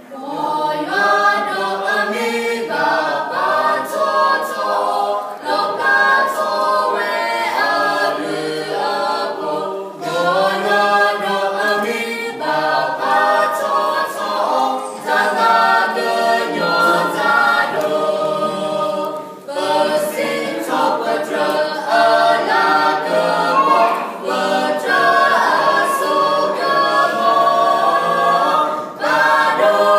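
Mixed vocal quartet of two men and two women singing a hymn a cappella in harmony, with the voices coming in together at the start.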